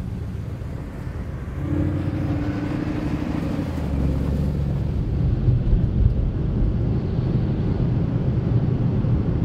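Low rumble of Mercedes-AMG GT prototype V8 engines running, growing louder about two seconds in and again about four seconds in, with a brief steady hum near the start.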